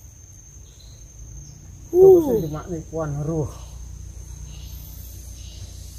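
A steady, high-pitched insect drone runs throughout, with a man's voice briefly breaking in about two seconds in.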